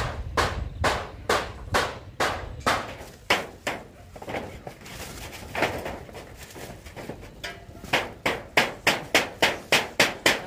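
A run of sharp, regular knocks, like blows struck on something, about two a second. After a quieter pause with a single knock, a quicker run of about three a second comes near the end.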